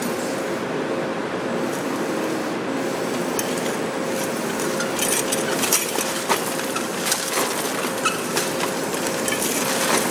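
Two cordless drills running steadily with a constant whine, spinning bladed rollers through a tub of gravel. From about five seconds in, pebbles rattle and click against the metal and the plastic tub.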